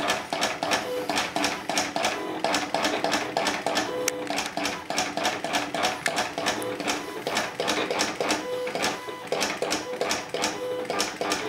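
Silhouette Cameo hobby cutter cutting a solder paste stencil: its stepper motors drive the blade carriage and feed rollers in a fast, continuous run of clicks, with short motor hums that come and go as the blade traces the small pad openings.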